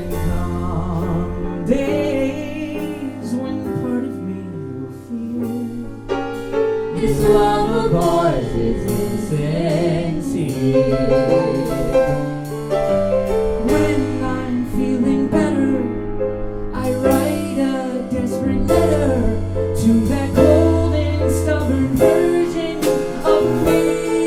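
Live band music: piano with bass and drums playing, and a voice singing over it.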